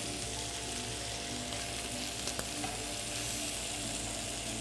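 Lamb ribs frying in sauce in a nonstick pan, a steady sizzle, with a faint click or two about two and a half seconds in.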